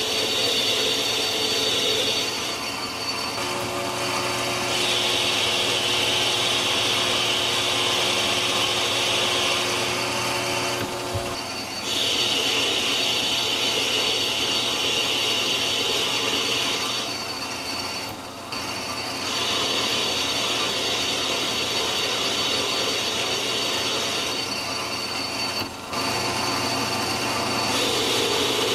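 Metal lathe turning a steel flange-nut blank, the carbide tool cutting steadily and throwing chips. The cutting noise drops away briefly about four times and then resumes.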